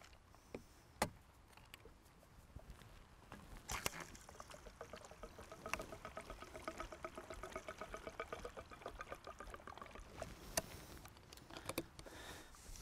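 Gasoline poured into a four-stroke string trimmer's fuel tank, glugging quickly and evenly from its container for several seconds, with a few handling clicks before and after.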